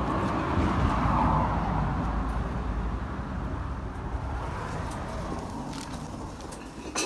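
Road vehicle noise: a low rumble that swells about a second in and then slowly fades.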